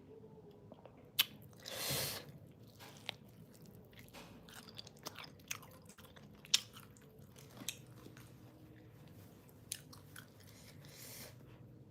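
A person chewing and biting food close to the microphone, with scattered sharp crunches and clicks and one longer, louder noisy burst about two seconds in.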